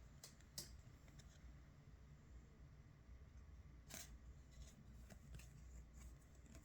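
Faint handling sounds from a pocket knife and its packaging: a few short, sharp clicks, two near the start and a louder one about four seconds in, over a steady low hum.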